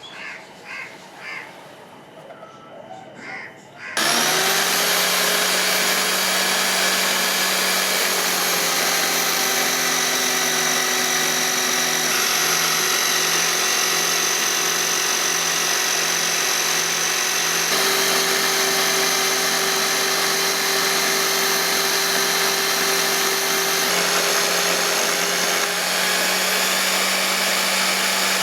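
An electric power tool switches on abruptly about four seconds in and runs at a steady speed, its tone shifting slightly now and then.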